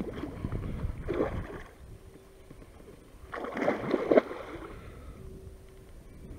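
A hooked pike thrashing and splashing at the water's surface beside a boat while being netted. There is a short burst of splashing about a second in and a longer, louder one as the fish leaps clear of the water past the halfway point.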